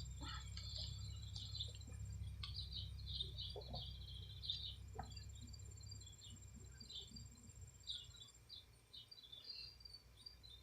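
Small birds chirping repeatedly in the background, with a low rumble, like wind on the microphone, through the first half. A thin high steady whine comes and goes.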